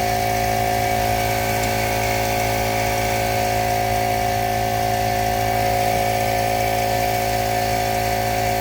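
McGraw 10-gallon air compressor running steadily with an even motor hum, pumping air into a completely flat car tire.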